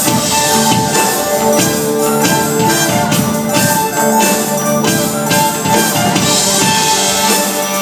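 Live band playing music: a drum kit keeping a steady beat under a repeating figure of short, bright pitched notes.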